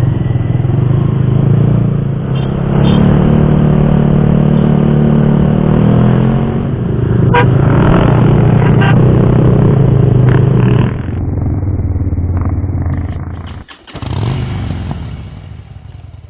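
Motorcycle engine running steadily at a fairly constant pitch. Near the end it breaks off briefly, and a rush of noise follows and fades away.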